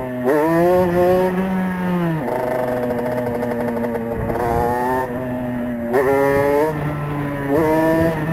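Small two-stroke supermoto engine riding under throttle. Its pitch climbs and falls as the bike accelerates and shifts, with fresh bursts of throttle just after the start and twice near the end.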